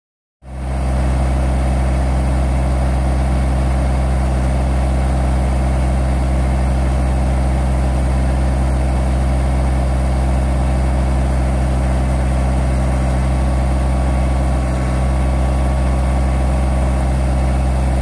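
Massey Ferguson GC1710 compact tractor's three-cylinder diesel engine running at a steady speed while it powers the rear backhoe.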